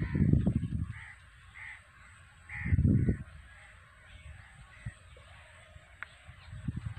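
Crows cawing, a few short calls in the first few seconds, with two louder bursts of low rumble on the microphone, near the start and about three seconds in.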